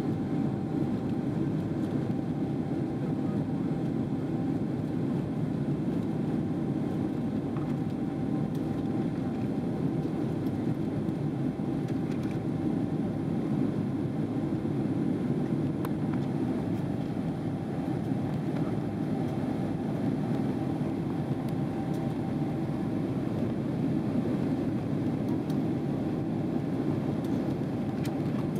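Steady cabin noise inside a Boeing 777-300ER climbing out after takeoff: the even rumble of its GE90 engines and the airflow, with a faint steady hum above it.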